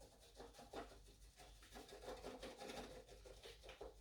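Faint, quick scratchy rustling and ticking as seasoning is shaken onto raw chicken and worked in by hand.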